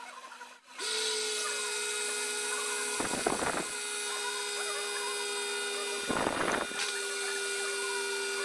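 Electric countertop blender motor running steadily, blending avocado and cream, starting about a second in with a steady high whine. Two brief noisy bursts sound over it, about three seconds apart.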